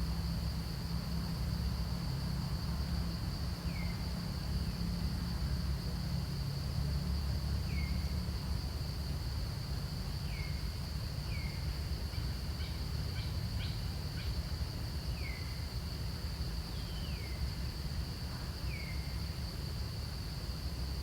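Steady high-pitched drone of insects, with a low rumble underneath. Short falling chirps from an animal come every couple of seconds. A brief patter of clicks sounds about halfway through.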